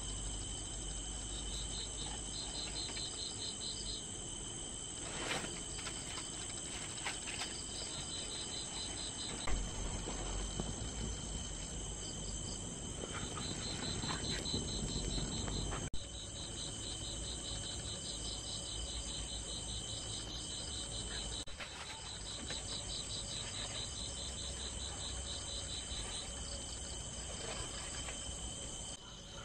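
Insects chirping: a steady high trill with repeated short bursts of fast pulsed chirps, and a few soft knocks now and then.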